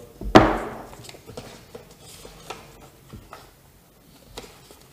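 A sharp knock of a cardboard box set down on a wooden tabletop, then small clicks and rustling of a paper instruction leaflet being handled.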